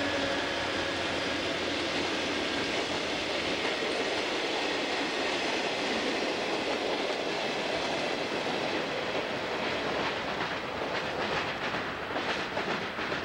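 Union Pacific freight train rolling past. A diesel locomotive's engine tone fades in the first second, leaving the steady rumble of freight cars on the rails. From about ten seconds in, as the caboose nears, the wheels clack sharply and repeatedly over rail joints.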